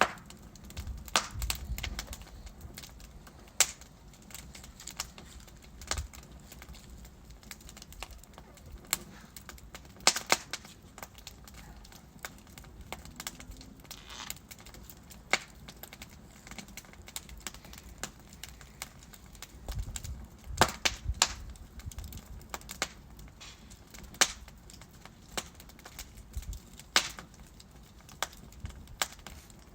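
Wood fire burning in a fireplace: burning logs crackle and pop in irregular sharp snaps over a low steady hiss, with a few low rumbling flare-ups.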